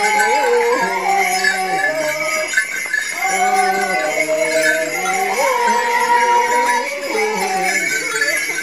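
Music: a sung melody in long held notes that step up and down in pitch, with jingling bells throughout.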